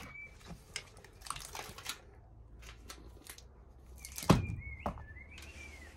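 Foil-faced sound-deadening sheet crinkling and rustling as it is handled, with scattered small crackles and one sharp knock about four seconds in.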